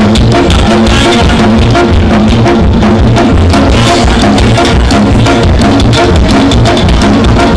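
Live band playing loud, with a steady drum-kit beat and thumping bass and no singing.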